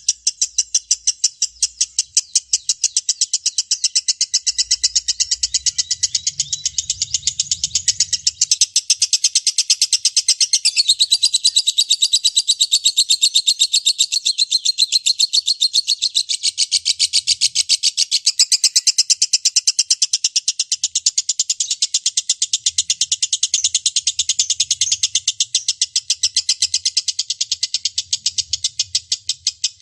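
Lovebird in 'ngekek panjang', its long unbroken chattering song: a fast, even run of high-pitched notes, about five a second, that goes on without a pause.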